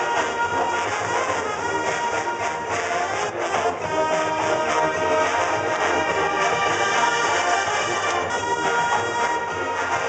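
Marching band playing, with brass (trumpets and trombones) carrying held and moving notes over percussion.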